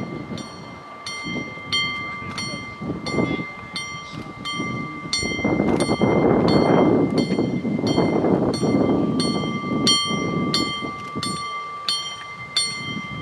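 Dm7 'Lättähattu' diesel railcar running past close by, its engine and wheels on the rails, loudest about halfway through and easing near the end. Throughout, a bell rings about twice a second over a steady high tone.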